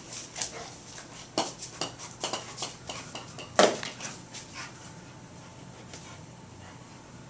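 A puppy playing with a golf ball on a ceramic tile floor: a run of sharp clicks and knocks from the ball and claws on the hard tiles, the loudest knock about three and a half seconds in. It grows quieter from about five seconds on.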